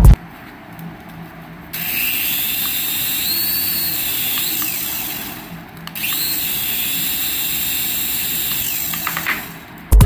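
Small toy RC helicopter's electric rotor motors whirring: a high whine over a rush of spinning blades, in two runs of a few seconds with a short break between them, the pitch rising as each run starts.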